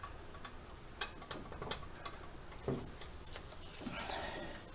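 Sparse, irregular light metallic clicks and taps as a long alternator mounting bolt is worked out of the alternator bracket on a small-block Chevy, with a soft rubbing scrape near the end.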